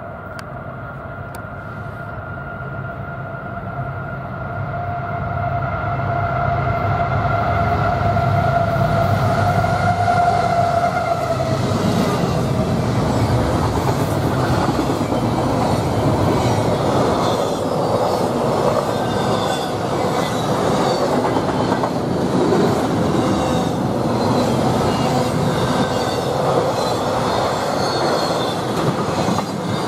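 CSX freight train Q009 approaching with a long, steady horn blast that grows louder and cuts off about eleven seconds in. Then the locomotives and double-stack intermodal cars pass close by, a loud, steady rush of steel wheels on rail with clatter.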